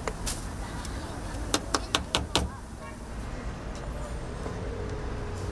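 Street-stall background with a steady rumble of traffic, and a quick run of about five sharp clicks and taps from utensils about a second and a half in.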